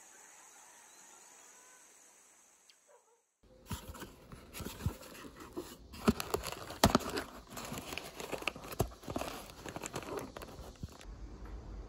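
Cardboard packaging being handled and opened by hand: a run of irregular crackles, clicks and light knocks starting about three and a half seconds in. Before it there is only a faint steady high hiss.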